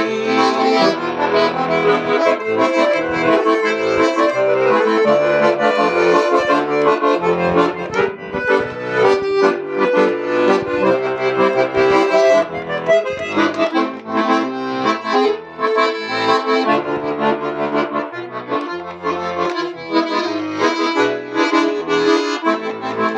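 Bayan (Russian button accordion) playing an instrumental passage: sustained chords over a stepping bass line.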